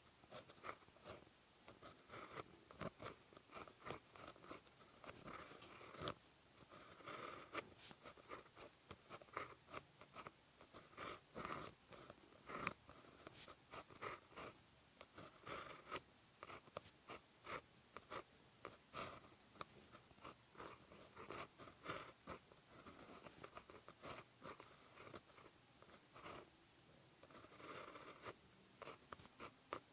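Pen tip scratching across paper in short, irregular strokes, handwriting Korean letters; quiet, with small taps as the pen lifts and touches down.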